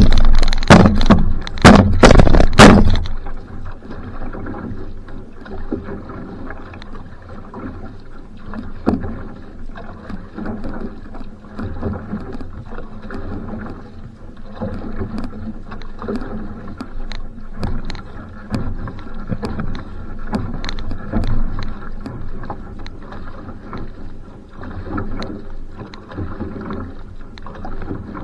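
Va'a outrigger canoe being paddled: water rushing along the hull, swelling roughly every second or so with the paddle strokes. A few loud blasts of noise in the first three seconds.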